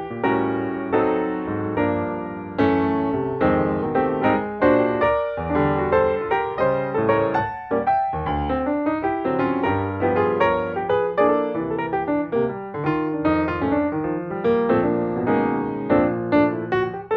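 Background piano music: a lively run of notes with chords beneath, played at an even level.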